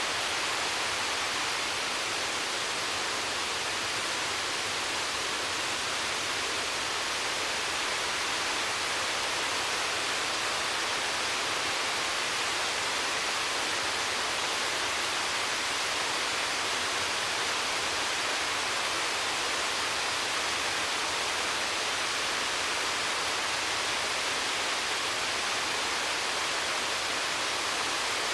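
Waterfall: water falling and splashing in a steady, unbroken rush of hiss-like noise.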